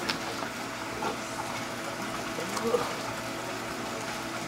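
Steady hum and running water of a store's aquarium rack filtration system.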